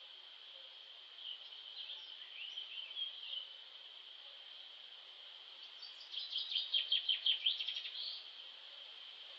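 Birds chirping over a steady high-pitched insect drone, with a short phrase of chirps about a second in and a louder, rapid trill of notes a little past the middle.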